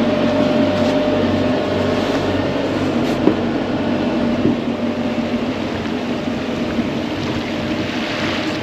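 Boréal 55 aluminium sailboat under engine: the steady hum of its inboard diesel with a thin steady high note over it, and water rushing along the hull.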